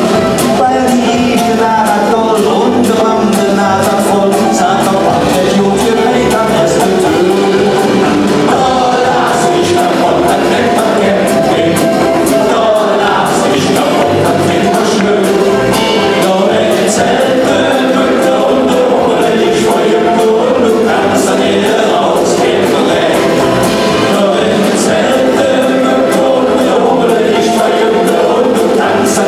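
Live band music with a man singing lead into a microphone, other voices singing with him, over a steady beat.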